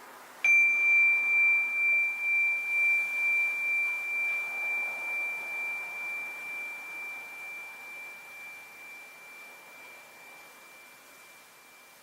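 A Japanese rin (Buddhist singing-bowl bell) struck once, ringing with one clear high tone that pulses gently as it slowly fades over about eleven seconds.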